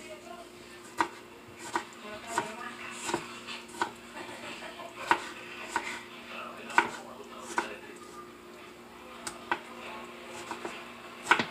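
Kitchen knife dicing a tomato on a plastic cutting board: separate sharp taps of the blade on the board, unevenly spaced, about one a second.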